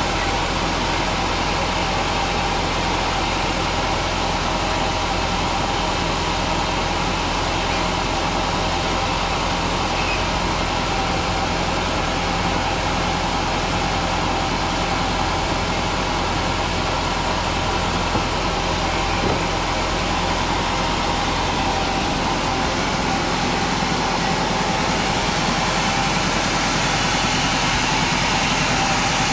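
Sawmill saw machinery running with a steady, unbroken drone while a large pine log is sawn.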